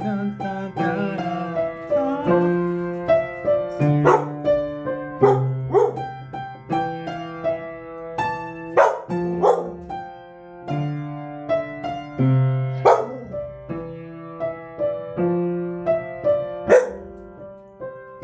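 A keyboard plays a melodic piano song while a dog barks along several times in short, sharp barks, set off by the music.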